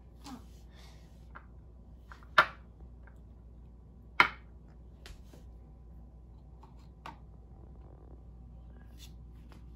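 A metal spoon knocking against a plastic blender cup to shake peanut butter off it: two sharp knocks about two seconds apart, with fainter taps and clinks before and after.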